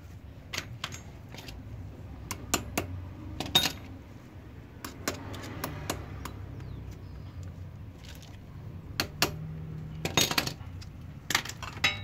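Motorcycle roller drive chain clinking and rattling as it is handled and drawn around the rear sprocket by hand: irregular metallic clicks and jangles, with a louder clatter about three and a half seconds in and a burst of them near the end.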